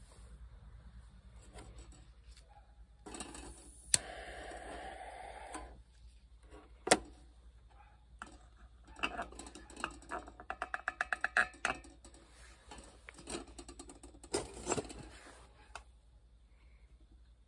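Feuerhand hurricane oil lantern being handled and lit: a sharp strike with a hissing flare lasting a couple of seconds, then sharp metal clicks, a fast run of about a dozen small clicks, and a louder metal knock near the end.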